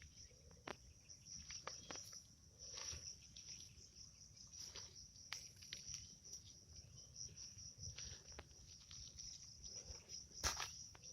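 Faint, steady high-pitched chirring of insects, with scattered soft clicks and a sharper knock near the end.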